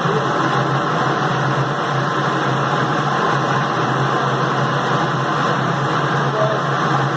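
Automatic 20-litre jug washing, rinsing, filling and capping machine running continuously: a steady mechanical hum with an even rushing noise over it and no breaks.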